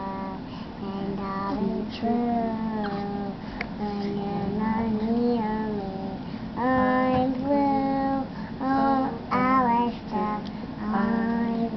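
A young girl singing, phrase after phrase with short breaks, louder in the second half.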